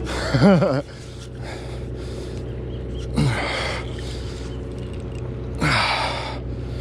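A man gasping and groaning with exertion while fighting a big yellowtail on rod and reel: a wavering vocal strain in the first second, then two short falling breathy exhalations at about three and five and a half seconds. A steady low hum from the boat runs underneath.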